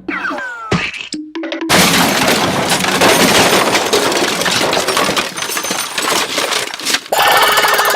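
A string of cartoon sound effects: a quick falling whistle-like glide and a couple of short tones, then a long crashing clatter full of sharp clinks and cracks lasting about five seconds, ending in a wavering, warbling tone near the end.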